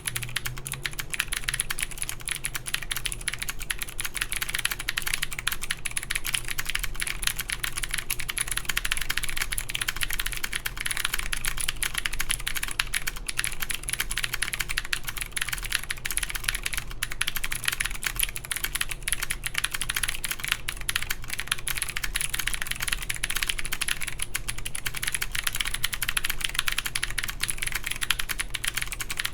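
Fast continuous typing on an OTD 356CL mechanical keyboard with clicky Cherry MX Blue switches in an aluminum plate, capped with Cherry G81-3077 keycaps: a dense run of sharp key clicks that starts right at the beginning.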